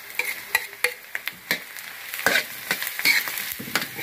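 Garlic and softened onions sizzling in a frying pan, with a spatula stirring and knocking against the pan in irregular sharp clicks.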